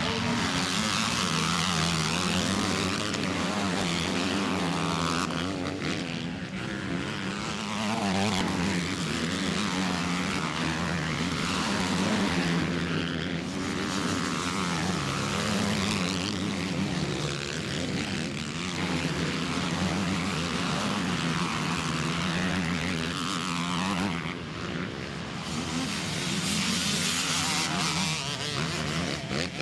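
Motocross bikes racing, their engines revving up and falling away again and again as riders work the throttle, with more bikes droning further round the track.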